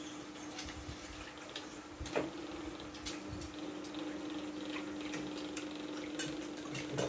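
Eating sounds at a table: a spoon clinking and scraping in a stainless-steel bowl, with wet mouth sounds of eating noodle soup, over a steady low hum. One sharper clink comes about two seconds in and another near the end.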